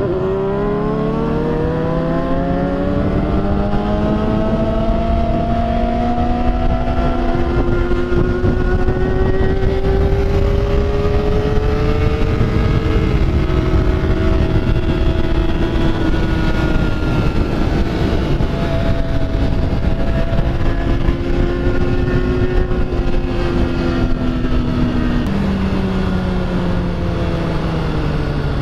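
Motorcycle engine under way, its revs climbing over the first few seconds, then rising and falling with the throttle, with a sudden drop in revs near the end, over a steady rush of wind.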